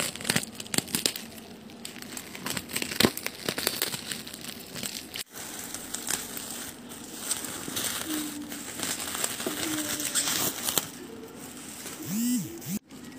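Plastic cling wrap and bubble wrap crinkling and crackling as it is cut and pulled at around a cardboard shipping box, with irregular small clicks and rustles.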